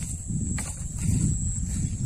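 Wind buffeting the phone's microphone: an uneven low rumble, with a steady high-pitched whine above it.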